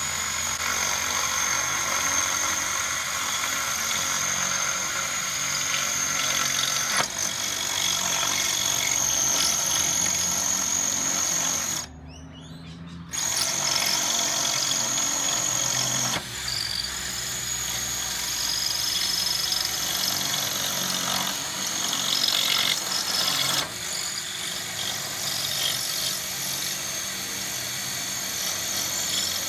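Cordless hammer drill, run without hammer mode, grinding a masonry bit down through several layers of overlapping roof tiles toward the roof batten. The drill runs steadily with a high whine, stops for about a second some twelve seconds in, then starts again.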